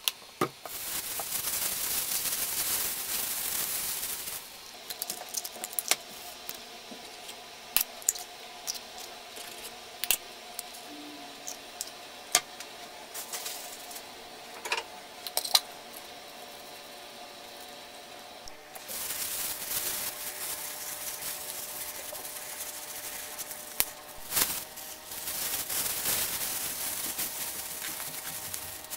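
Thin plastic bag crinkling as it is handled and twisted shut, in two stretches, with scattered sharp clicks and taps between them and a faint steady hum underneath.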